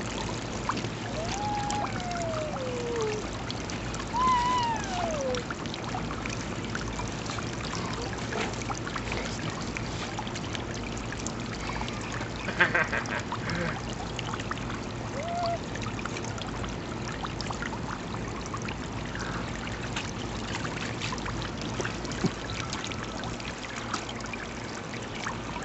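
Water from a garden hose trickling and spraying steadily into an inflatable kiddie splash pool. A few brief voice sounds with falling pitch cut through it, about a second in, at four seconds and later once more.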